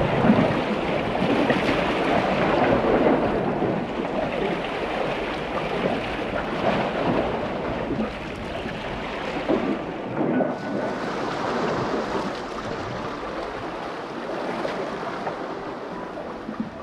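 Lake waves washing and splashing against breakwater rocks in irregular surges.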